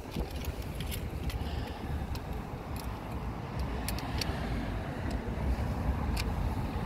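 Wind buffeting the microphone, a steady low rumble, with scattered light clicks and rattles as the landing net's handle and frame are handled.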